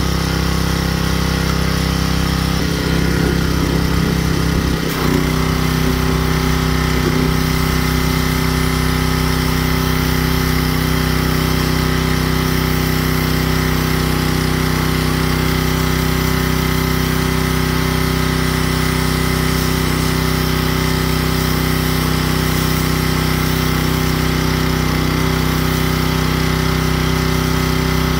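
Gas-engine pressure washer running steadily, its small engine holding one even tone; the tone shifts slightly about five seconds in.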